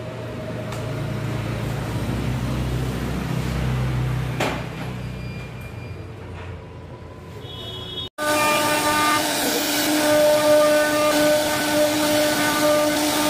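A low hum, then after a sudden cut about eight seconds in, a CNC router's spindle whines steadily on several pitches as its bit carves a wooden door panel.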